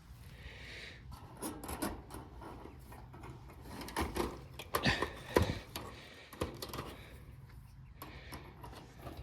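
Fence wire mesh rattling and clinking in irregular short clicks as its hooks are bent around a fence wire by hand, a few louder knocks about four to five and a half seconds in.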